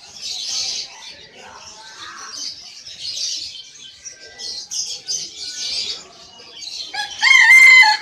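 Many caged songbirds chirping and twittering together in a dense, continuous chorus. Near the end a single loud, drawn-out bird call about a second long cuts over it.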